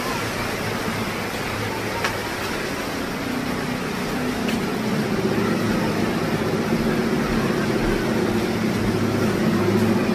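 A motor vehicle engine running steadily over a constant rush of outdoor noise, growing gradually louder through the second half.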